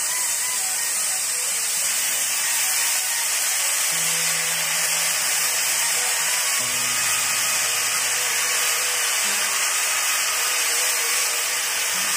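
Steady hissing of food cooking in a pot on the stove.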